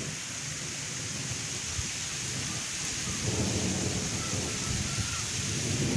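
Heavy rain falling steadily, an even hiss, with a low rumble underneath that swells about halfway through.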